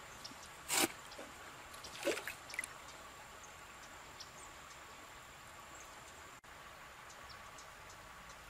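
Hands plunging into shallow river water, with two splashes in the first couple of seconds, then a faint steady trickle of the flowing river.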